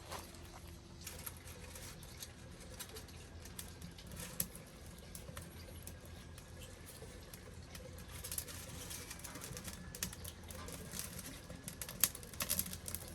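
Small wood fire crackling in a stainless steel wood stove as dry leaves and thin kindling catch: scattered sharp pops and ticks, sparse at first and coming more often and louder in the last few seconds.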